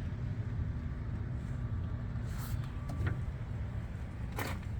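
Steady low hum of a car engine idling, with a light knock about three seconds in and a couple of sharp clicks near the end.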